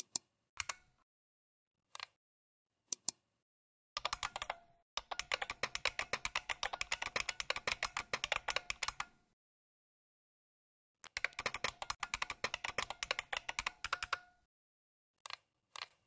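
Emulated keyboard sounds from the bucklespring program, which plays back recorded IBM Model M buckling-spring key clicks as text is typed: a few separate clicks, then two runs of rapid key clicks, about four to nine seconds and eleven to fourteen seconds in, and a few more clicks near the end.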